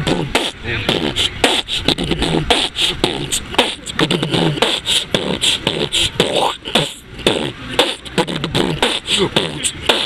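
Human beatboxing: a fast, steady rhythm of vocal kick, snare and hi-hat sounds made with the mouth, with short hummed low notes between them.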